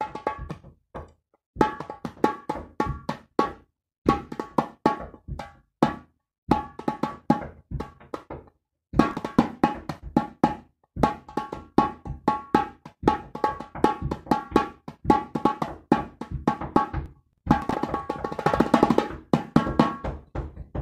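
Metal-bodied tarabuka (darbuka goblet drum) played with the hands: quick rhythmic phrases of ringing strokes separated by short pauses, building into a fast, dense roll near the end.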